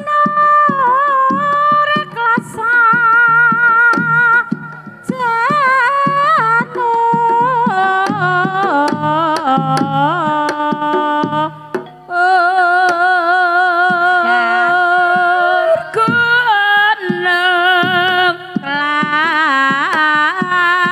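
Javanese Banyumasan gending: a sinden (female vocalist) sings long, wavering held notes over a gamelan accompaniment with regular percussive strokes.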